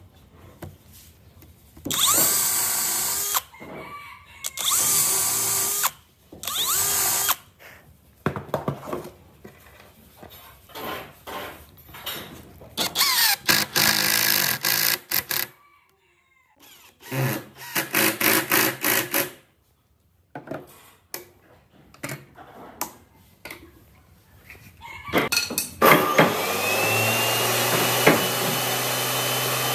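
Power drill driving screws into wooden frame joints, in about five short runs of a second or two, its motor whine rising at the start of each run. About 26 seconds in, a table saw motor starts, spins up and then runs steadily.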